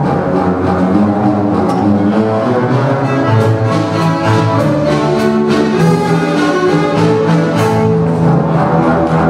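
About forty double basses bowed together as one ensemble, playing a traditional tune in sustained full chords, with a few short percussion strokes in the middle.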